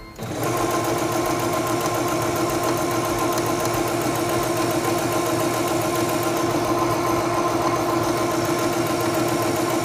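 Singer Stylist 7258 computerized sewing machine starting up a moment in, then running at a steady speed as it sews a straight stitch through fabric.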